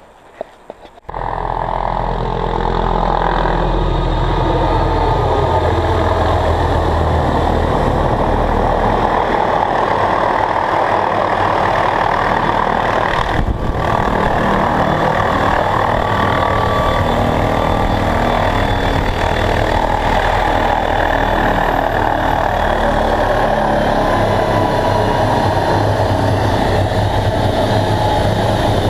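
Helicopter engine and rotor running steadily and loudly, starting abruptly about a second in.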